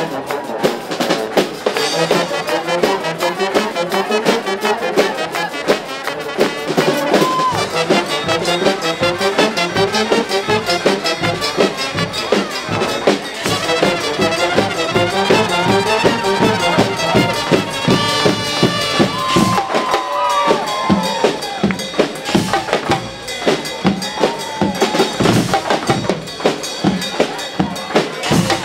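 Guggenmusik carnival band of brass and drums playing a tune with a steady beat, with a few long held brass notes around the middle.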